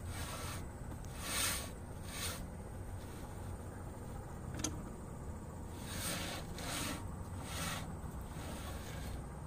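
About six short rasping metal scrapes, in two runs of three, at a trailer wheel hub as the spindle nut is snugged with pliers, with one sharp click midway.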